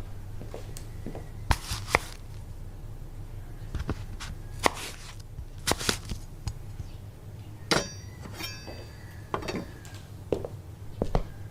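Comedy sound effects: a scattered string of sharp knocks, clicks and thuds over a low steady hum, with a ringing metallic clink about eight seconds in.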